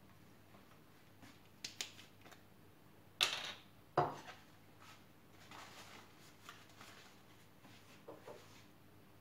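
Small kitchen items being handled off camera: a few light clicks, then a sharp clink and a knock about three and four seconds in, followed by softer clattering.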